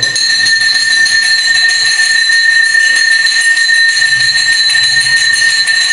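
Temple bell ringing continuously and rapidly during an aarti, a steady metallic clangour with two ringing tones held throughout.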